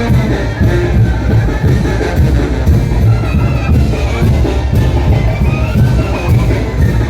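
Mexican banda (brass band) playing a son de chinelo: brass melody over a steady, pulsing bass and drum beat.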